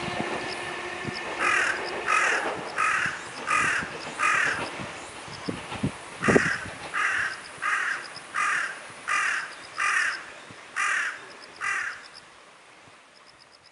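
A crow cawing repeatedly: five harsh caws about one every 0.7 s, a short pause, then about eight more.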